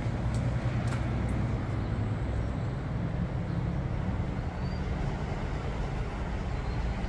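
Steady low rumble of road traffic, with the constant hiss of an outdoor field recording.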